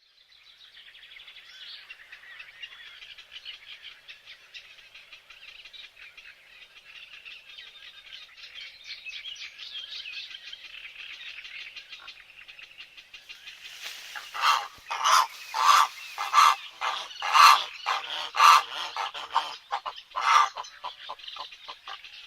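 A flock of small birds chattering and chirping continuously; about two-thirds of the way through, a bird close by gives a series of about ten loud, harsh calls in quick succession before the chatter carries on.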